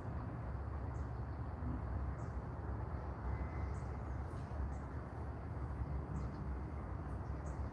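Outdoor early-morning ambience: a steady low rumble with scattered short, high chirps of small birds.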